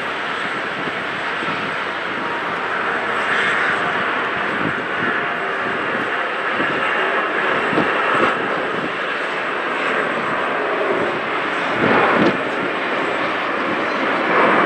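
Steady jet airliner engine noise on an airport apron: an even, unpitched roar with no clear tone, swelling briefly a few times.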